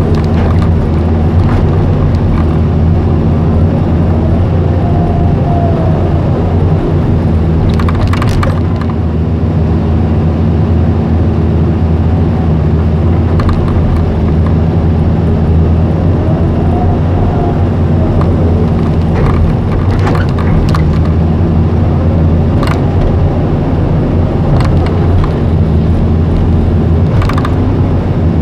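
Caterpillar hydraulic excavator's diesel engine running steadily under digging load, heard from the operator's cab. Twice a brief whine rises and falls as the machine works harder, and the bucket knocks and scrapes in the dirt a few times.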